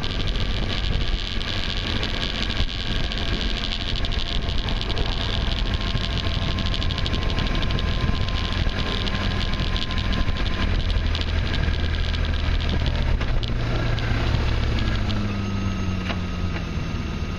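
Vehicle engine running while driving along a dirt farm track, with tyre and wind noise over it. About three-quarters of the way through, the engine note drops as the vehicle slows.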